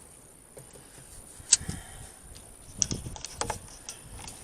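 Workshop handling noise from a tape measure and board being moved during measuring: one sharp click about a second and a half in, then a few softer knocks and clicks near the end.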